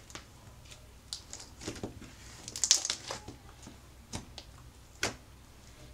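Hands stretching and kneading a mixed batch of slimes with foam cubes in it: irregular sticky crackles and squelches, the loudest a little before halfway.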